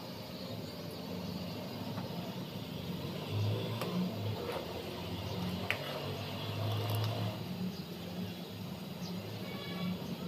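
Steel ladle stirring vermicelli in simmering milk in an aluminium pan, clinking lightly against the pan a few times, over a steady low hum.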